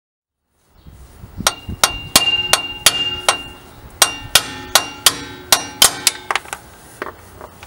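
A small sledgehammer strikes steel wheel studs in a car's rear hub, driving out the stripped studs. The blows come in a steady run of about three a second, each with a metallic ring, with a short pause partway through and lighter blows near the end.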